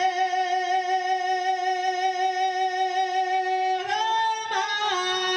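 Male naat singer holding one long note through a PA system, steady with a slight waver, then breaking into sliding melodic turns about four seconds in.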